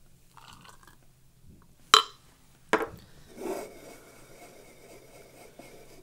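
A glass espresso cup and a steel milk pitcher being handled on a counter: two sharp knocks a little under a second apart, about two seconds in, then a short rustle and a faint steady hiss.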